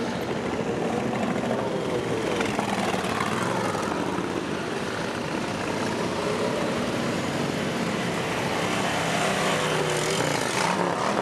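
Many motorcycles riding past one after another: a continuous mix of engine noise whose pitches rise and fall as each bike goes by.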